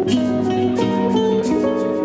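Music: a plucked string melody, guitar-like, with light percussion keeping a steady beat.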